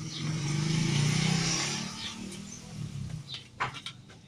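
A motor vehicle passing by, its engine hum swelling to a peak about a second in and fading away, with a few light clicks and taps near the end.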